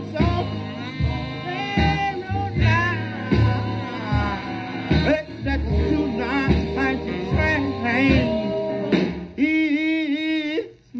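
A 1954 rhythm and blues vocal-group record plays from a 78 rpm disc on a turntable: singing over instrumental backing. Near the end comes a long, wavering held note, followed by a brief break.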